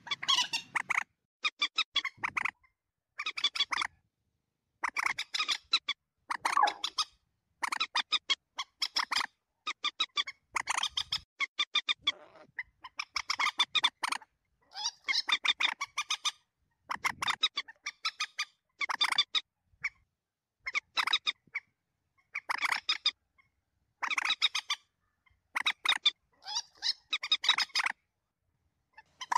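Common moorhen calls from a lure recording: short bursts of rapid, harsh clucking notes, about one burst a second, with silence between.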